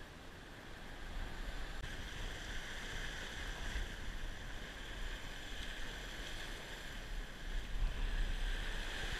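Sea surf washing and breaking over shoreline rocks, a steady rushing hiss that swells near the end, with wind buffeting the microphone in low gusts.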